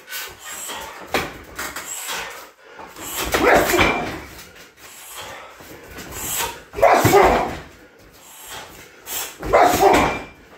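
Shin kicks and punches thudding into a heavy bag, with three loud short cries spaced about three seconds apart standing out above the thuds.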